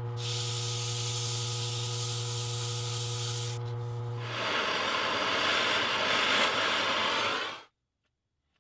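Jet mini wood lathe motor humming steadily while a hand rubs the spinning monkey puzzle wood vase with a hiss. A little past halfway the hum drops out and a louder, rougher rubbing takes over, then cuts off abruptly.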